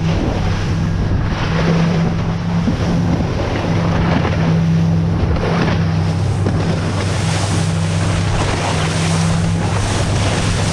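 Motorboat under way in open sea: the engine runs with a steady low hum beneath the rush of water past the hull, and wind blows over the microphone.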